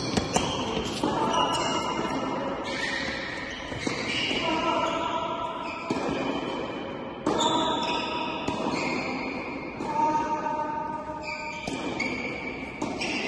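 Background music: sustained chords or synth notes that change about every one and a half seconds, each change marked by a soft attack.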